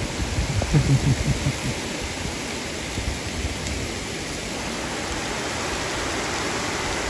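Heavy rain pouring down, a steady dense hiss of a downpour falling on a gravel driveway and grass.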